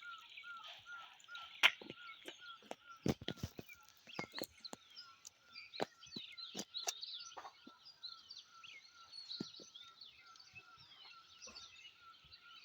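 Many small birds chirping and twittering, over a steady note repeated about three times a second. Several sharp clicks cut in, the loudest about a second and a half in and a cluster about three seconds in.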